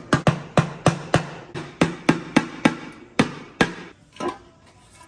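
A rapid series of sharp strikes, about three to four a second, stopping about three and a half seconds in, followed by one last strike a little later.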